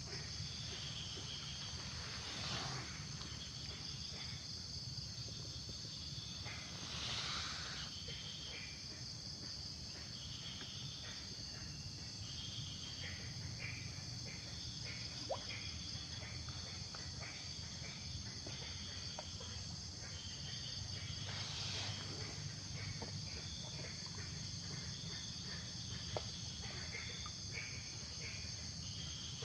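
Outdoor ambience dominated by a steady, high-pitched insect chorus of crickets or similar insects, over a low steady rumble, with scattered faint clicks and chirps and a few brief noisy swells.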